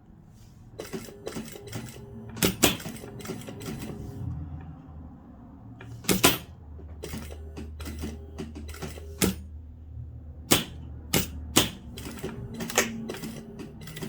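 Irregular sharp clicks and rattles of a beaded dress being handled, its beads knocking together, with a low hum for a few seconds in the middle.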